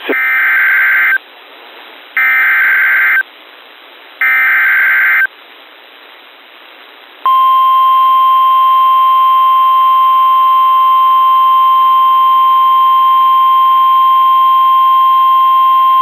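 NOAA Weather Radio Emergency Alert System signal announcing a Severe Thunderstorm Warning. First come three one-second bursts of screechy digital SAME header data, about two seconds apart. About seven seconds in, the steady 1050-hertz weather radio alert tone starts and holds for about nine seconds, heard through a weather radio receiver.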